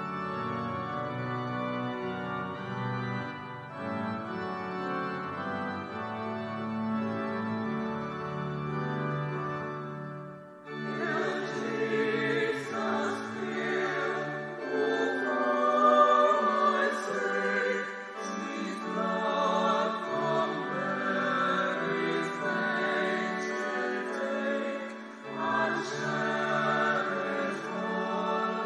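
Organ music: sustained held chords, then about ten seconds in a choir comes in singing over the organ.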